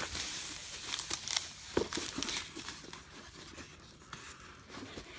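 Thin foam packing sheet crinkling and rustling as it is handled and pulled away from the device. It is loudest in the first couple of seconds, with one sharp tick near two seconds in, then dies down to a quieter rustle.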